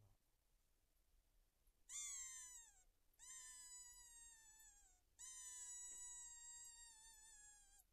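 Three long, high-pitched whining calls from a predator caller imitating a distressed animal to draw in a fox. The first starts about two seconds in and is short and falling. The next two are longer, the last holding steadier in pitch.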